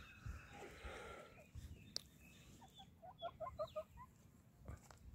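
Faint soft clucking from a chicken: a quick run of short notes about three seconds in, with a single light tick shortly before.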